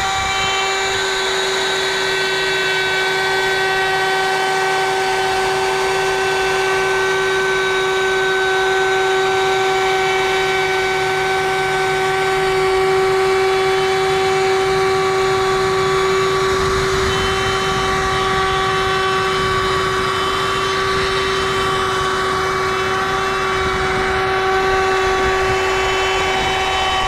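Bosch router with a 1/4-inch roundover bit running at full speed, a steady high whine with rough cutting noise as the bit rounds over the edge of a plywood rail.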